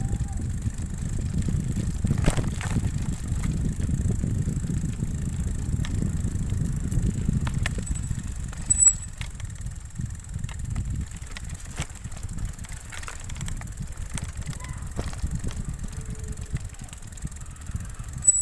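Bicycle rolling over a rocky dirt track: a low rumble of tyres on gravel and wind on the microphone, with scattered knocks and rattles as the bike hits stones. A sharp knock comes a little before halfway, and the rumble gets quieter after it.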